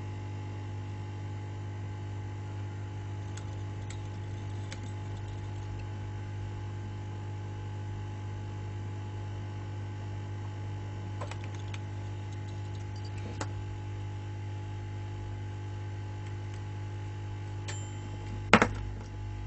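Steady electrical mains hum, with a few faint clicks of small tools on metal parts and one sharp, loud click near the end.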